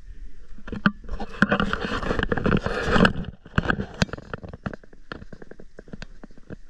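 Handling noise close to the microphone: irregular clicks and knocks, with a denser stretch of rubbing and scraping about a second in that lasts around two seconds.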